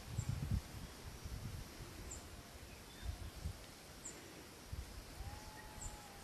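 Rural outdoor ambience: low, uneven wind rumble on the microphone, faint high bird chirps about every two seconds, and a short steady whistle near the end.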